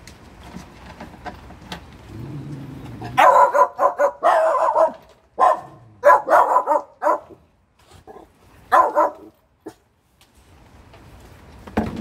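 A puppy barks in a string of sharp barks in several bouts, then falls quiet. They sound like alert barks at a noise; afterwards the owner reassures the dogs that it is nothing and nobody is there.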